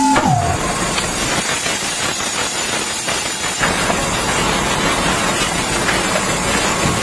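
A steady, engine-like running noise with a strong hiss. At the very start, a horn-like tone glides down and stops.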